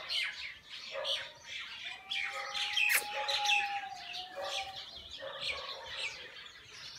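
Small birds chirping and twittering almost without pause, with one long, steady whistled note from about two seconds in to nearly five seconds, and a single sharp click about three seconds in.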